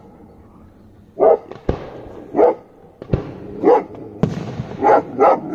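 A dog barks repeatedly, about one bark a second, while fireworks go off: two sharp bangs, then a hissing crackle from about four seconds in as a rocket climbs.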